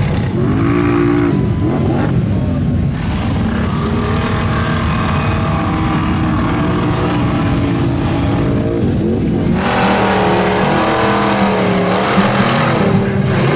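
Lifted mud truck's engine revving hard under load as it churns through a mud pit, the pitch rising and falling with the throttle. About two-thirds of the way through, the sound cuts abruptly to another engine at high revs with more hiss.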